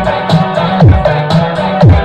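Loud electronic dance remix played over a sound system, with a deep falling bass hit about once a second under a steady beat.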